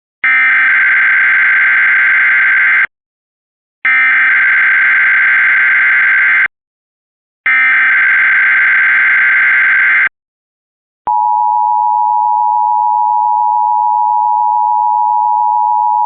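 Emergency Alert System broadcast: three loud, screechy bursts of the SAME digital header data, each about two and a half seconds long with a second of silence between them, then about eleven seconds in, the steady two-tone EAS attention signal begins.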